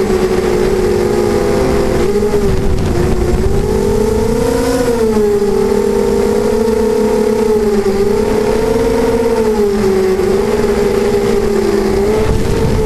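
Racing quadcopter's electric motors and propellers whining steadily, the pitch wavering up and down with throttle changes through the flight. Heard from the onboard camera, with a low rush of wind noise underneath.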